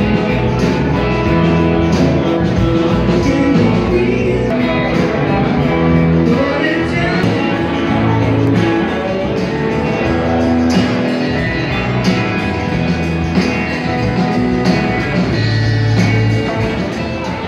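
Live band playing a song: a woman singing over electric and acoustic guitars and a drum kit with a steady beat.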